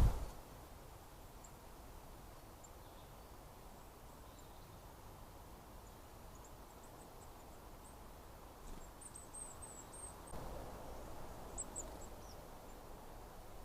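Quiet outdoor ambience with a small bird's high, thin chirps scattered through it, more of them in the second half. There is a soft rustle near the end.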